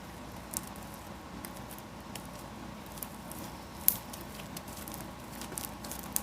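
Hand-kneaded slime that has gone stiff and no longer stretchy, being worked and pulled: soft squishing with scattered small pops and clicks, and one sharper snap about four seconds in.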